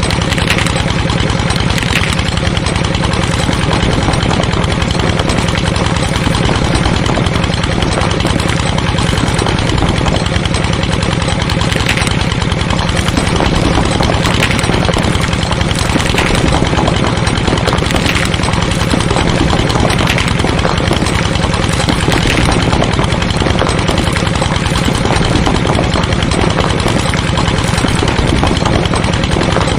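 Small engine idling steadily, a fast even low chugging that does not change, with a few faint light clicks over it.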